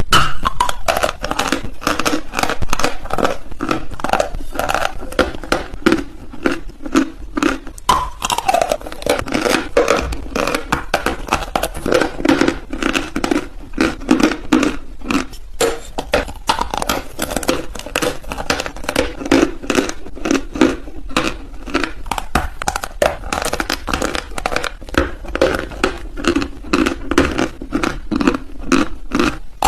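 Dry chalk being bitten and chewed close to the microphone: a dense, continuous run of crisp crunches and crackles.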